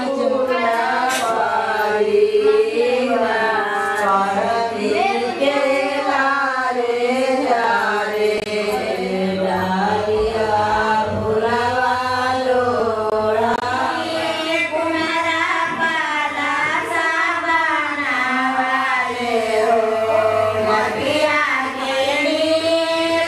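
Singing in a slow melodic line of long held notes with a wavering vibrato, without a clear beat.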